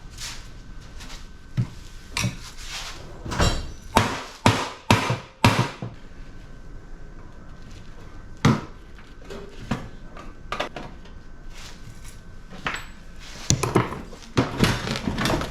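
Knocks and clanks of tools striking metal parts of a scrapped air-conditioning unit as a part is worked loose. There is a run of heavy blows a couple of seconds in, a single blow in the middle, and a quicker clatter near the end.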